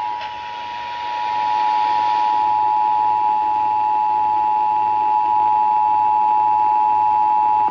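Emergency Alert System two-tone attention signal (853 Hz and 960 Hz sounded together) received on a handheld FM radio, over a steady hiss of static. It swells over the first second and a half, holds for about eight seconds, then cuts off sharply, announcing the emergency alert message that follows.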